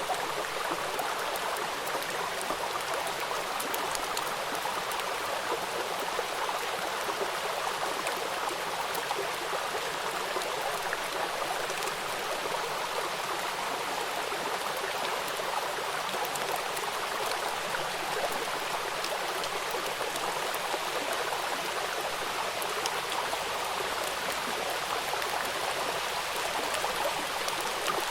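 Steady rain falling: an even, unbroken hiss with faint ticks of individual drops.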